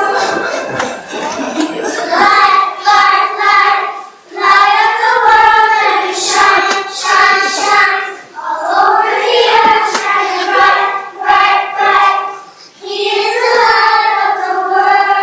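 A group of children singing a song in unison, in sung phrases broken by short breaths about every four seconds.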